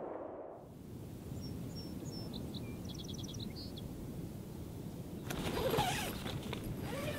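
Steady open-air beach ambience with faint bird chirps and a quick trill. About five seconds in, the tent's zipper and nylon rustle as the door is opened, with a wavering, drawn-out voice-like sound.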